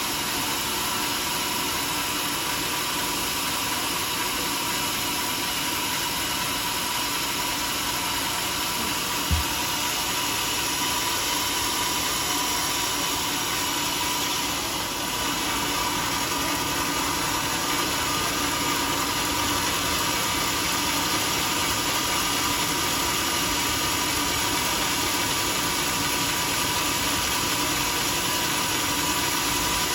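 Sawmill machinery running steadily: a continuous even mechanical noise with a faint constant hum, and a single short knock about nine seconds in.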